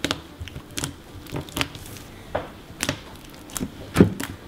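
Hands squeezing and poking a yellow macaroni-and-cheese slime in a plastic tray, giving irregular wet squishes and pops, with the loudest pop near the end.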